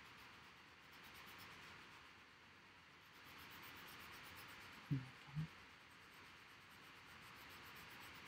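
Faint, soft scratching and rubbing of a drawing tool shading on paper, with two short, low thumps about half a second apart around five seconds in.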